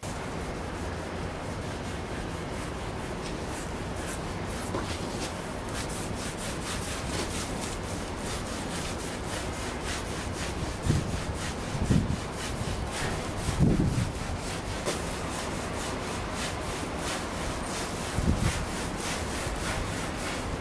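A cloth rubbing over a balcony partition panel in repeated wiping strokes, with a few dull thumps now and then.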